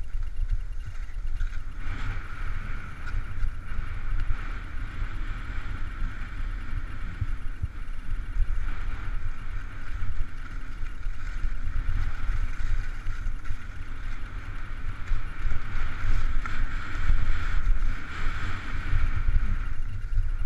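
Wind buffeting a body-worn action-camera microphone with a steady low rumble, over the hiss of alpine skis sliding and scraping on groomed snow during a downhill run. The ski hiss comes in about two seconds in, is strongest shortly before the end, and drops off at the very end.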